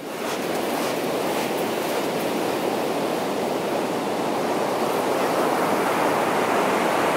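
Ocean surf: a steady wash of breaking waves on a beach.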